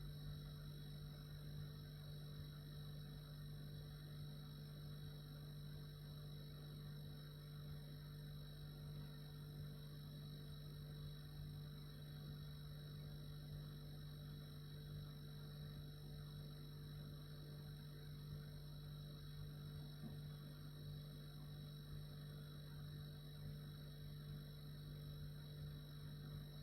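Refrigerator running: a steady low hum from its compressor, with fainter high steady tones over a soft hiss.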